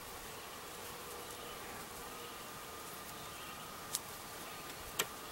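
Faint steady buzzing hum, with two sharp clicks near the end; the second click is the louder.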